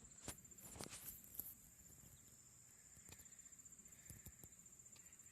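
Near silence: a steady high-pitched whine with a few soft clicks and taps scattered through it.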